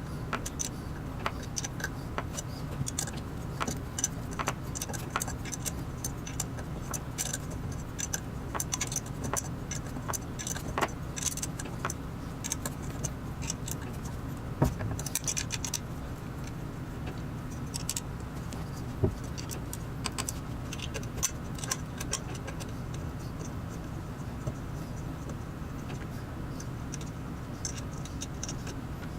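Small metal clinks, jingles and the odd knock of hand tools and fasteners while the metal frame of a Creality CR10S 3D printer is bolted together, over a steady low hum.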